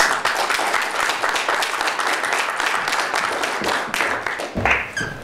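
Audience applauding: a burst of clapping that starts suddenly and dies down after about four and a half seconds, with a low thump near the end.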